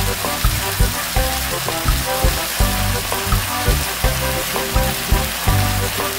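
Seaweed stems sizzling as they stir-fry in the pan, with a steady hiss throughout. Background music with a steady beat plays over it.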